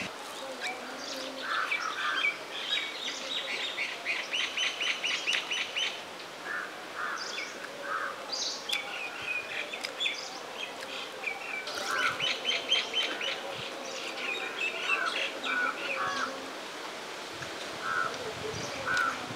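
Several birds calling. Quick runs of high chirps come twice, with shorter, lower calls scattered between them.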